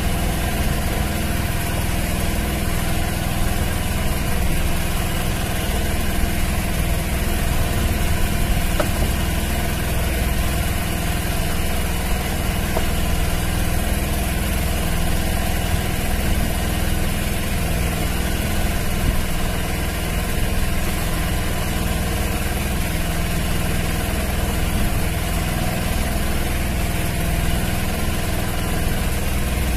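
An engine idling steadily aboard an outrigger fishing boat, a constant drone that never changes speed.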